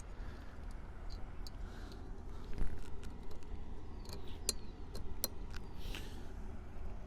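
Scattered light clicks and taps from handling and adjusting the flag mounts and poles on the rack, with one louder knock about two and a half seconds in, over a steady low rumble.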